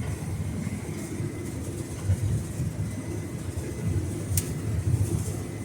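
Case IH 8120 combine running steadily while harvesting corn with a 12-row head, heard from the cab as a low rumble with a faint steady whine. A single sharp click comes about four seconds in.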